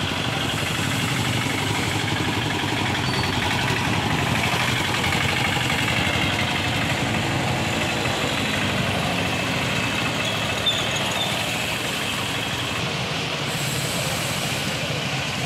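Auto-rickshaw and motorcycle engines running at low speed as they creep past through the puddles, a steady mix of small-engine traffic noise. A brief sharp knock comes about ten seconds in.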